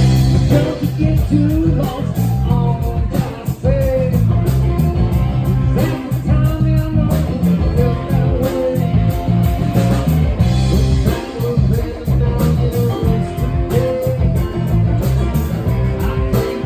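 Live rock band playing a steady groove, with electric guitar out front over bass and drums.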